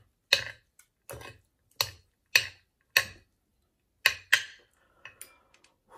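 Metal fork clinking against a glass dish of noodles: about seven sharp clinks, roughly half a second to a second apart, with two in quick succession about four seconds in.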